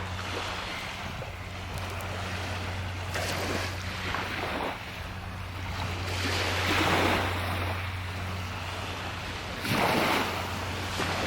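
Small waves washing up on a sandy beach, with two louder surges about six and ten seconds in.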